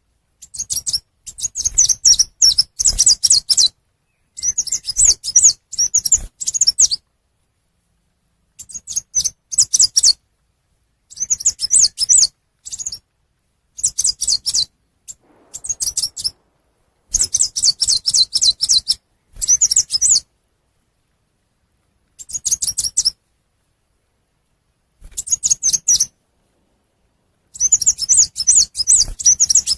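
Chim sâu xanh, a small Vietnamese songbird, calling: bouts of rapid, high twittering chirps one to three seconds long, broken by short silences.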